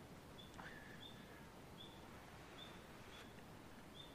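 Near silence: a quiet outdoor background with a faint short, high chirp repeating about once a second.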